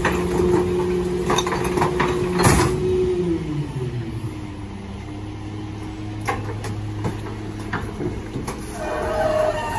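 Loadmaster rear-loader garbage truck running its packer on bulk waste: the engine is held at raised revs while the hydraulics work, with cracking and a loud knock as the load is crushed. About 3.5 seconds in, the engine winds down to a lower idle. Near the end a higher metallic squeal starts as the packer moves again.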